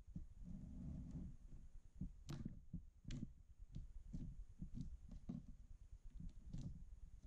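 Clear slime mixed with crumbled eyeshadow being squished and worked, giving soft irregular sticky pops and clicks, several a second.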